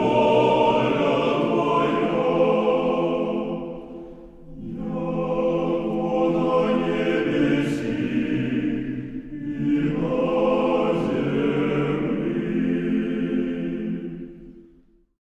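Recorded choral music: a choir singing slow, sustained chords in three long phrases with brief breaks between them, fading out near the end.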